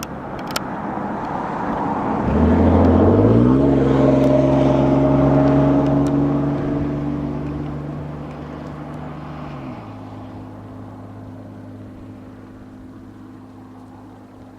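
A motor vehicle driving past: its engine grows louder and rises in pitch as it accelerates, stays loud for a few seconds, then fades into the distance with a drop in pitch near the end.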